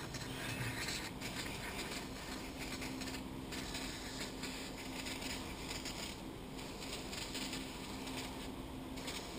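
Aerosol degreaser hissing out through its straw nozzle into a brake caliper's cylinder, in several long bursts with short breaks between them.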